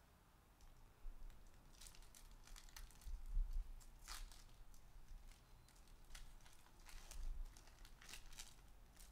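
Foil wrapper of an Upper Deck SPX hockey card pack being torn open and crinkled by hand: a run of irregular crackling tears and rustles, with a dull low bump a few seconds in.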